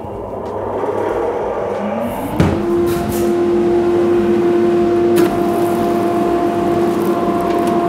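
Cyclone dust extractor starting up for its first test on the new pipe network: the motor winds up over the first couple of seconds, its hum rising in pitch to a steady tone, then runs steadily. There is a sharp clack about two and a half seconds in and another about five seconds in.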